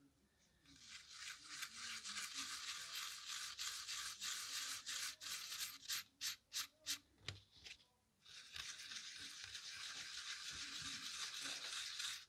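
Abrasive sanding sponge scrubbing back and forth over a small curved metal nameplate, sanding back overfilled black paint. It is a steady scratchy hiss that breaks into a few separate short strokes a little past the middle, stops briefly, then runs steady again.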